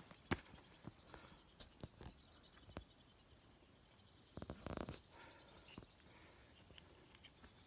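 Faint footsteps on bare sandstone slickrock: scattered taps and scuffs of shoes on rock. There is a sharp tap just after the start and a louder scuffing rustle about four and a half seconds in.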